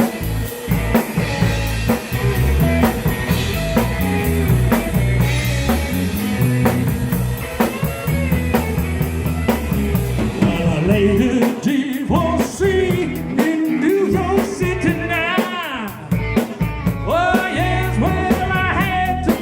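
Rock and roll band music with drums, bass and guitar. About ten seconds in the drums thin out and a sliding, wavering lead melody comes to the front.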